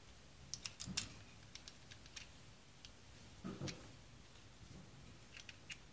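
Faint, scattered metal clicks from a Ruger Security Six revolver's hammer and trigger being worked by hand to free the hammer from the frame, with a soft handling sound about halfway through. The hammer is held up by a leather dry-fire pad left inside the frame.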